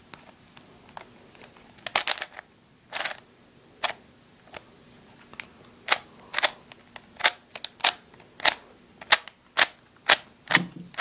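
A new 4x4 Rubik's Cube being turned by hand, its layers clicking into place with short, sharp clicks. They come a few at a time at first, then settle into a steady run of about two clicks a second.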